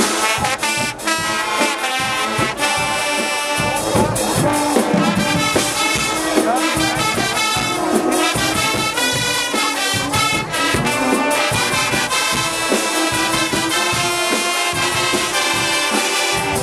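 Guggenmusik carnival band playing live: massed trumpets, trombones and sousaphones over a steady beat of drums and cymbals.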